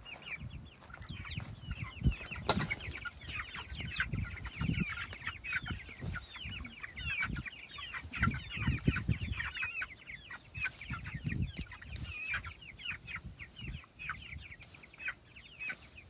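A flock of three-week-old Cornish Cross broiler chicks peeping continuously, many short, high, falling chirps overlapping. Irregular low thumps and rustling close by come from hands picking basil stems.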